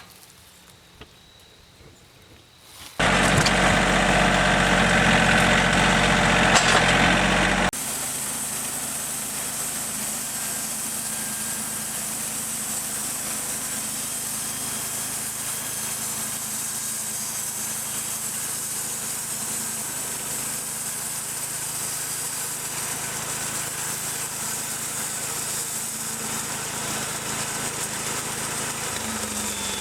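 An engine starts up loudly about three seconds in. Just under eight seconds in it drops suddenly to a steady, quieter idle that runs on.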